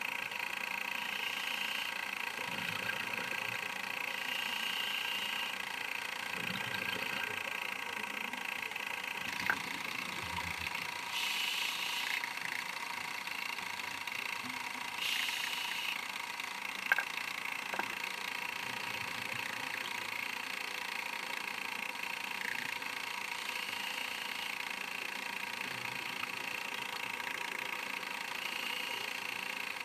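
Steady mechanical hum with several fixed whining tones: the camcorder's own motor noise picked up inside its underwater housing. Two brief hissing rushes break in about a third of the way through and again about halfway, and a few sharp clicks sound around them.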